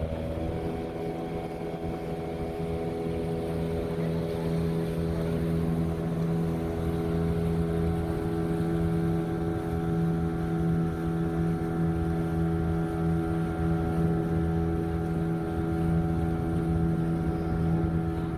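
A motorboat's engine running steadily at an even pitch.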